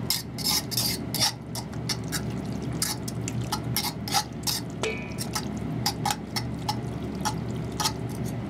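A fork stirring and picking through wet, greasy shredded opossum meat in a cast-iron pan, making irregular wet clicks and squelches over a steady low hum, with a brief metal squeak about five seconds in.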